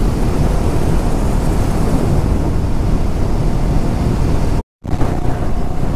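Wind rushing over the microphone together with the Triumph Scrambler 400X's single-cylinder engine running at highway speed. The sound cuts out for a moment about three-quarters of the way through, and a faint steady hum is there after it.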